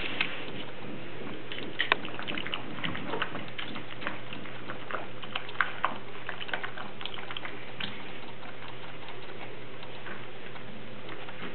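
English bulldog puppy lapping water from a bowl: irregular wet clicks and small splashes, thinning out after about eight seconds.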